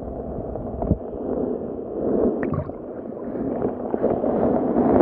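Underwater water noise heard through a submerged camera: a steady gurgling rush with a few short clicks and knocks scattered through it.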